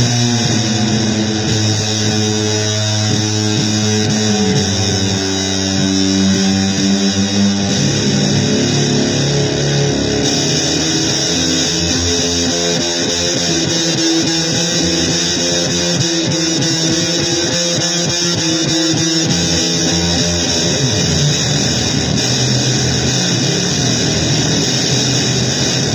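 Guitar playing slow, noisy blues: held notes that change every second or two over a constant hiss.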